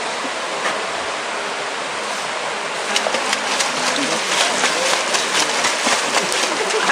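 Shallow stream rushing steadily; about three seconds in, rapid irregular splashing starts as a swimmer thrashes arms and legs through the shallow water.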